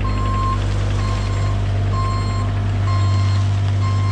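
Bobcat E32 mini excavator's diesel engine running steadily while its travel alarm beeps, a single high tone about half a second long repeating roughly once a second as the machine tracks along.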